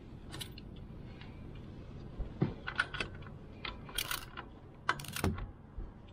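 Hand socket ratchet clicking in short irregular runs, with sharp metal clinks, as a bolt is turned on the tractor's underside above an oil drain pan.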